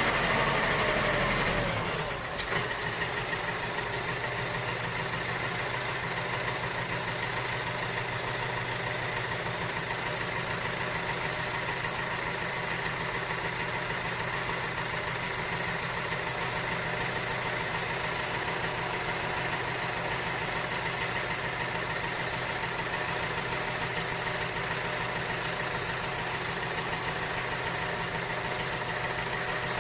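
Tractor diesel engine running steadily, its level dropping slightly about two seconds in and then holding even.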